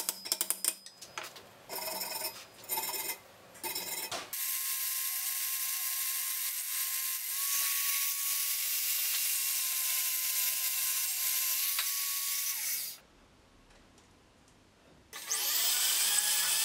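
A run of sharp metallic clicks for about four seconds, then a Proxxon rotary tool running with a steady high whine that stops abruptly near the end. After a short pause the rotary tool spins up again, rising in pitch, and grinds the steel eye tube of a saw-blade axe head with a small grinding stone.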